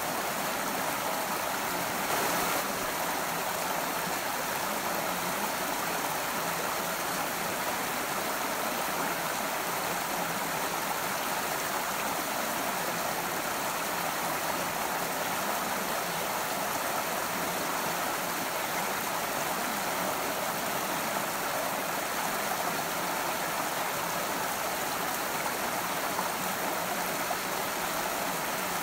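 A creek running over rocks: a steady rush of water, with a brief louder swell about two seconds in.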